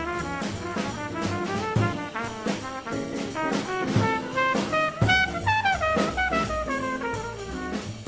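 Small-group bebop jazz recording: a fast brass melody line, with quick runs and slides between notes, over double bass and drum kit.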